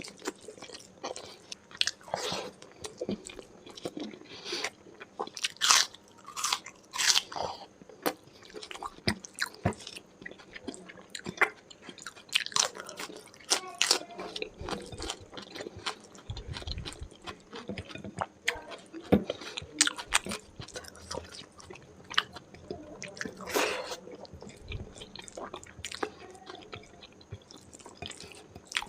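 Close-miked eating: wet chewing with irregular crunchy bites and smacking mouth sounds, of spicy chicken curry with rice, raw onion and chili.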